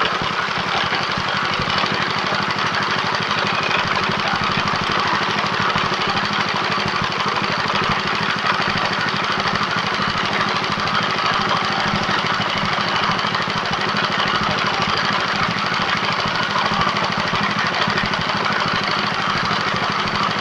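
Small engine running steadily, driving a chicken-feed pellet machine.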